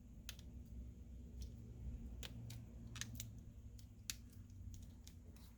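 Faint, scattered small clicks and taps of flex-cable connectors being pressed onto a smartphone's motherboard, the sharpest click about four seconds in.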